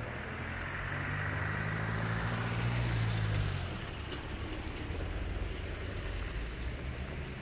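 Sofia tram T8K-503 running along the track: rolling noise with a low motor hum that swells for a couple of seconds and drops off about three and a half seconds in.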